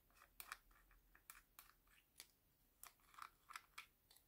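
Small plastic screw caps of a two-compartment case being handled and unscrewed: a string of light, irregular plastic clicks and ticks, about a dozen in all.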